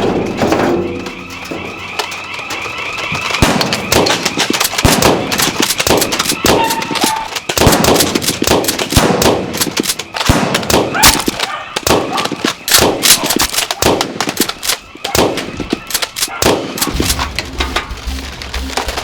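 Rapid, irregular bursts of gunfire-like shots, many strikes close together. A warbling siren-like tone runs under the first few seconds.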